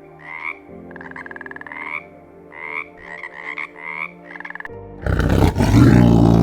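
A frog croaking about seven times in short rising, rattling calls over faint background music. Then a big cat roars loudly from about five seconds in.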